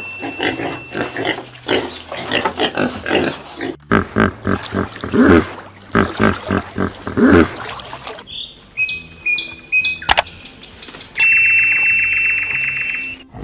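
Pigs grunting and squealing in a rapid run of short calls for the first seven or eight seconds. After that come high, steady ringing tones and a sharp click, over a faint music backing.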